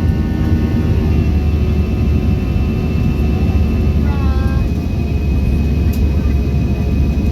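Airbus A320-214's CFM56 jet engines and airflow heard inside the passenger cabin: a steady deep rumble with high whine tones, one of which comes in about a second in. A brief voice-like sound about four seconds in.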